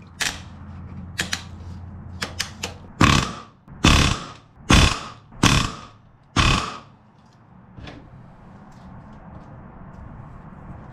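Pneumatic rivet gun hammering a spring-loaded back-riveting set to drive a solid aluminium rivet into an aluminium aircraft wing spar, in five short bursts about a second apart. Lighter clicks come before the bursts as the tool is set on the rivet.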